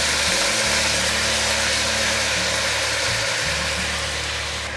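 Bitter melon frying in hot oil in a wok, sizzling steadily as soy sauce is spooned in, with a low hum underneath.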